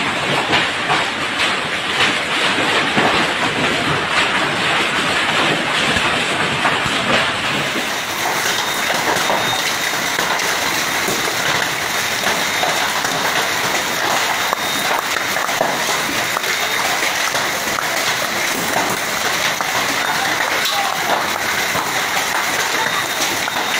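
Hail and heavy rain pelting hard ground: a dense, steady clatter of small ice impacts over the rush of rain.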